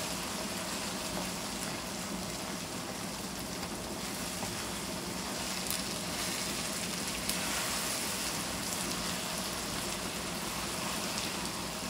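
Onions, tomatoes, green chillies and okra sizzling steadily in oil in a nonstick kadai as they are stirred with a silicone spatula, with faint occasional scrapes.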